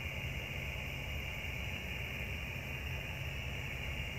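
Steady drone of a ship's engines heard on deck, a constant low rumble with a steady hiss higher up and no change in pace.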